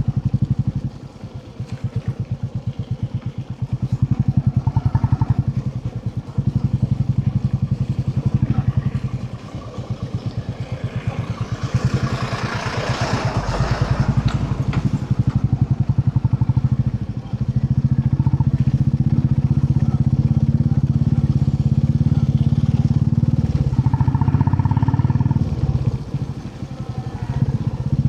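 Royal Enfield Classic 350's single-cylinder engine running on the move, its exhaust beat dipping and picking up again several times as the throttle is eased and opened, then holding steady for a while in the second half. A brief rush of noise swells up around the middle.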